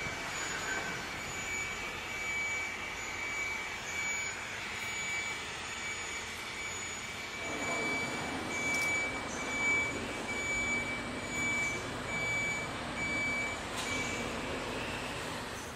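A high electronic warning beeper sounding in a steady repeating pattern of pulses, over an even hiss of factory background noise.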